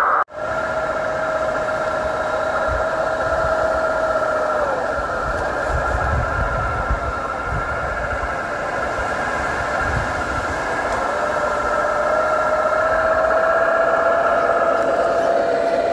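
Radio-controlled 6x6 scale crawler driving, giving a steady whine. The whine drops in pitch about five seconds in and climbs back up from about eleven seconds as the throttle changes.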